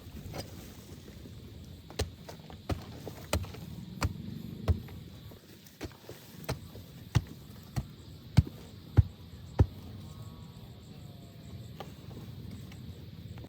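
A regular series of sharp knocks, about one every two-thirds of a second: five, a short pause, then seven more, the last ones loudest. Wood being struck with a tool while building a bushcraft shelter.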